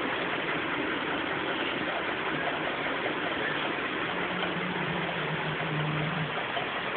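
Steady background noise, an even hiss with a low hum. A faint low steady tone sits under it from about two to six seconds in.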